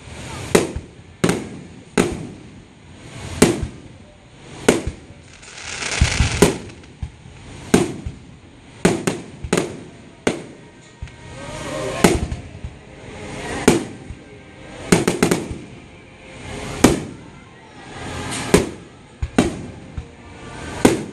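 Aerial fireworks display: shells bursting one after another in sharp booms about once a second, some in quick pairs, each with a short echoing tail.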